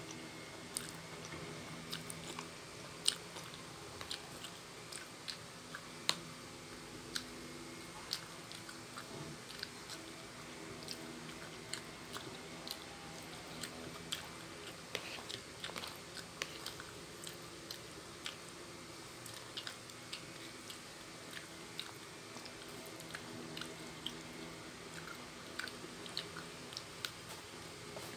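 Close-miked eating of green noodles: chewing and drawing in noodle strands, with many short, sharp wet mouth clicks and smacks scattered irregularly throughout.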